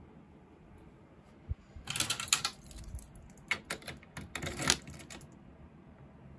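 Key on a small key ring rattling and clicking as it is worked in the front-door lock of a Juggler pachislot machine, in two bursts of metallic clicks after a single thump. The door is stiff to open and close.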